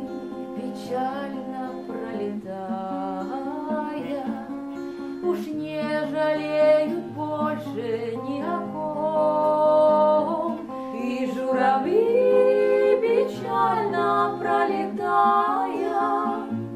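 Music: acoustic guitar accompaniment with a wordless melody line over it, in an instrumental passage of a song.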